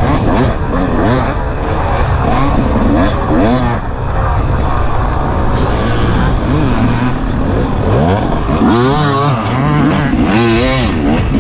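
Dirt bike engine revving up and down as the throttle is opened and shut on a twisty dirt trail, with a run of quick rising and falling revs near the end, over steady wind noise.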